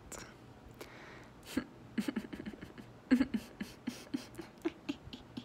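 A person making short, irregular mouth clicks and pops, several a second, each with a brief low voiced sound.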